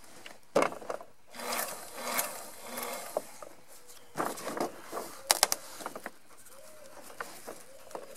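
Stiff monofilm sail panel crinkling and rustling as it is handled and slid into place under a sewing machine's presser foot, with a quick run of sharp clicks about five seconds in.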